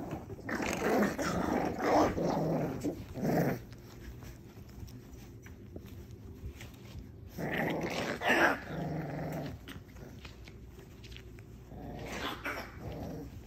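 Young American Bully puppies growling at each other while play-fighting, in three bouts of a few seconds each.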